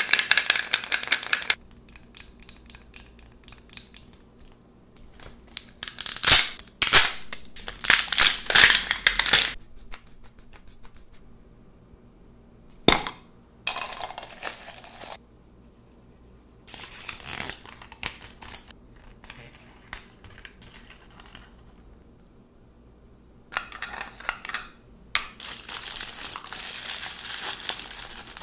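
Hands unboxing a Magic Mixies capsule toy: its plastic packaging crinkles and rustles in bursts with quiet pauses between, and there is one sharp click about halfway through. Near the end, purple tissue paper is crumpled and rustled steadily as the toy inside is unwrapped.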